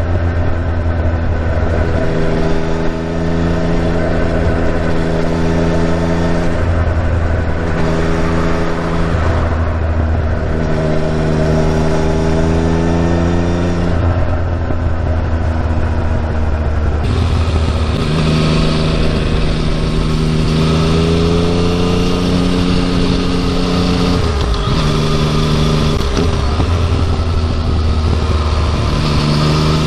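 Yamaha MT-09's three-cylinder engine running through its stock muffler. Its note holds steady for a few seconds at a time, drops, then rises again several times. The owner is chasing a hissing "shaa" abnormal noise from the bike, which he feels the stock muffler has made slightly better.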